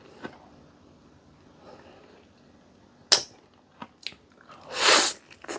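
Close-up mouth sounds of eating santol fruit: quiet chewing, a sharp click about three seconds in, and a loud mouth noise lasting about half a second near the end.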